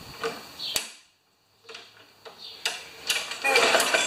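Craftsman 158cc lawn mower being pull-started: scattered clicks, then a dense clatter of rattling clicks from about three seconds in as the recoil starter is yanked. The engine does not catch.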